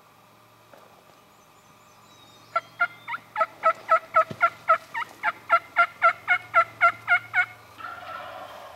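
Turkey yelping: a rapid series of about nineteen evenly spaced, pitched yelps at roughly four a second lasting about five seconds, followed near the end by a short raspy burst.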